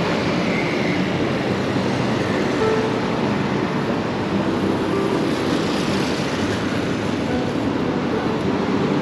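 Steady city street traffic noise from cars and motorbikes driving along the road.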